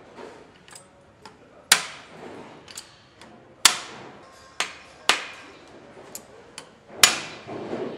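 Metal hand tools clicking and knocking against the alloy parts of an engine being assembled: about five sharp, ringing clinks at irregular intervals, with fainter ticks between them.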